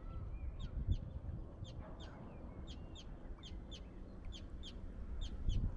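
Small bird calling over and over in short, high chirps, about three or four a second, over a low steady rumble.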